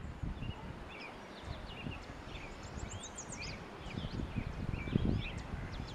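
Small birds chirping in many short, quick high chirps and sweeps over an uneven low rumble that swells about five seconds in.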